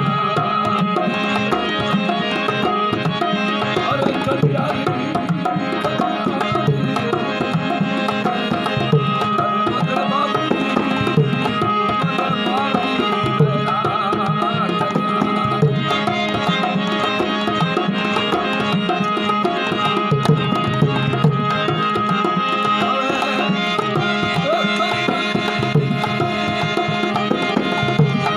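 Instrumental passage of a Marwari folk song: a hand drum plays a steady rhythm under a melody line, over a held low drone.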